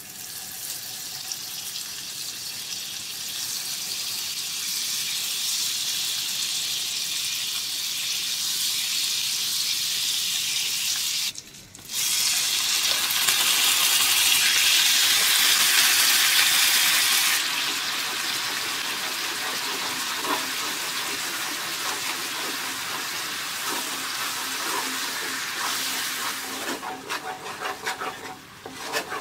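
Sugar syrup bubbling and sizzling in a nonstick frying pan as a cube of butter melts in. After a brief break about eleven seconds in, milk added to the hot syrup makes a louder, brighter hiss for about five seconds, then the sizzle settles. A wooden spoon scrapes and stirs near the end.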